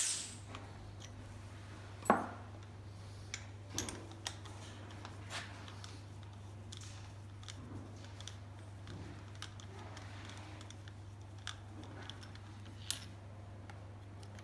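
Scattered light clicks and metallic clinks of a compression tester and hand tools being handled off to one side, the loudest a knock about two seconds in, over a steady low hum.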